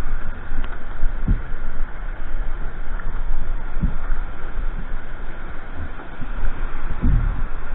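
Weir white water rushing close to the microphone as a kayak sits in the churning outflow. Three low thumps come through it: a little over a second in, near the middle, and near the end.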